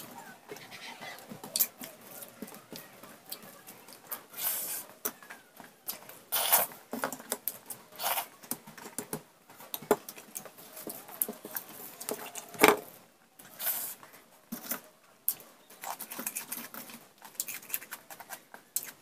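Eating sounds: a person chewing and smacking mouthfuls of rice eaten by hand, with fingers mixing and scooping rice on a stainless steel plate. Irregular soft clicks and rustles, with one sharper knock about two-thirds of the way through.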